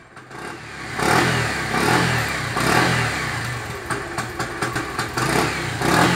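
Small motorcycle engine running at idle, revved up and down again and again, about once a second.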